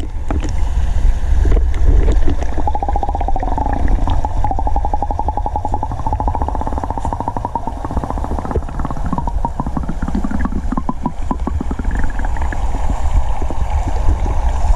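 Motorbike engine running while riding, its pitch rising about three seconds in, with heavy wind rumble on the microphone.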